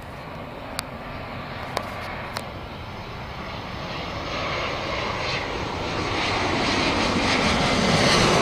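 Jet airliner passing close, its engine noise building steadily louder with a rising high whine, which the spotter takes for a smaller Airbus. A few sharp clicks in the first two and a half seconds.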